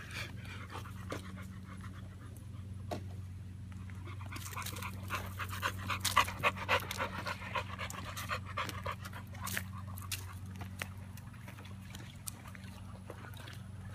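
American Bully dogs panting, in a run of quick breaths that is loudest around the middle. A steady low hum runs underneath.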